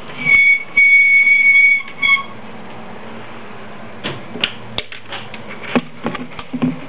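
A loud, high squeal, steady in pitch, in three stretches over the first two seconds. Then irregular sharp clicks and crunches as a savannah monitor chews a mouse held in its jaws.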